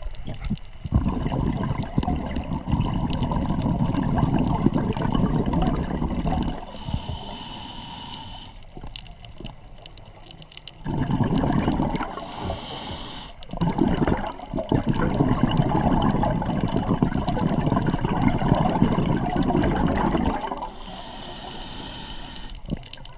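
Scuba diver's regulator breathing heard underwater: long rushes of exhaled bubbles, two long ones with a shorter one between, separated by quieter stretches as the diver breathes in.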